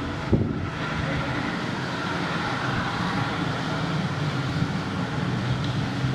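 Busy street ambience: a steady rumble of traffic mixed with indistinct voices, and one brief thump about a third of a second in.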